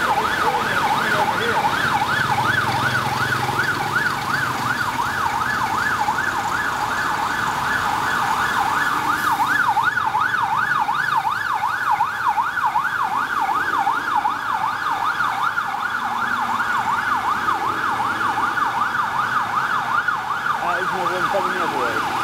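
Rescue vehicle's electronic siren sounding in a fast yelp, its pitch rising and falling about three times a second without a break.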